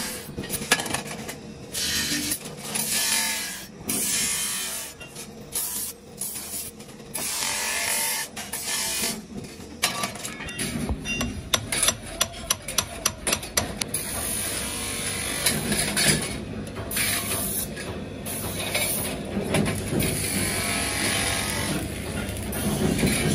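A steel trowel blade is held against a motor-driven sanding drum and ground in repeated strokes with short gaps. Then loose metal trowel blades clink and clatter together as they are handled.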